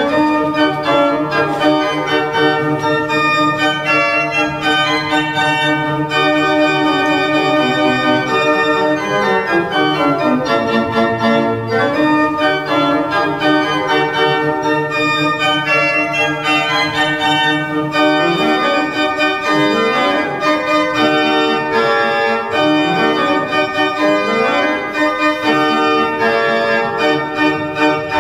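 Baroque pipe organ built by Martin Podkonický in 1751, playing a fast piece full of quick notes. A long falling run comes about nine seconds in, and a series of rising runs in the bass follows in the second half.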